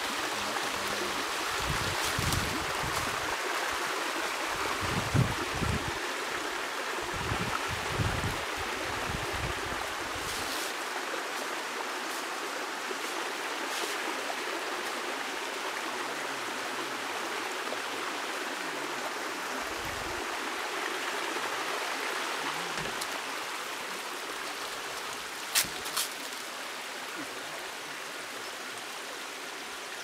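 Steady rush of flowing water at the Sefwi Boinzan waterfalls, with a few low thumps in the first ten seconds and two sharp clicks in quick succession near the end.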